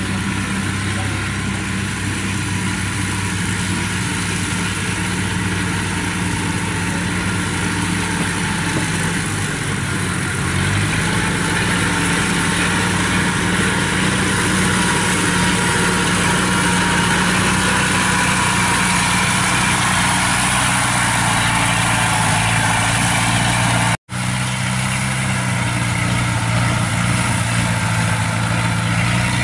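Small crawler rice harvester's engine running steadily under load as it cuts through standing rice. Its note steps up a little and gets louder about ten seconds in. The sound cuts out for an instant about 24 seconds in.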